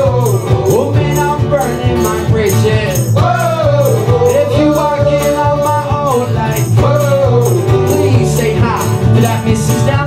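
Acoustic pop-rock band playing live: a lead vocalist singing long, gliding lines over strummed acoustic guitar, electric bass and cajon, with a steady, even beat.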